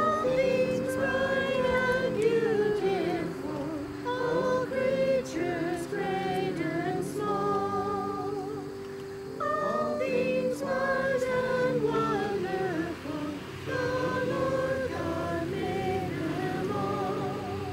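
A congregation singing a hymn together, sung in phrases with short breaks, with women's voices most prominent.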